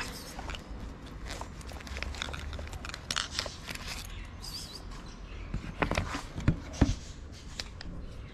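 Handling noises on a wooden pallet table: scattered clicks, rustles and knocks as a backpack and cat food are handled, with a few louder knocks about six to seven seconds in.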